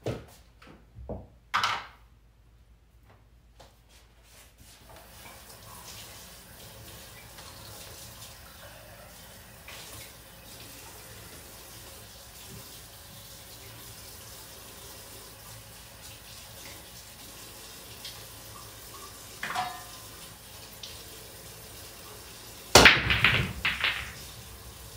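Pool break shot near the end: the cue strikes the cue ball, which cracks into the racked balls, and the balls clack together and off the cushions for about a second. Before it, a few light knocks at the start and a faint steady hiss.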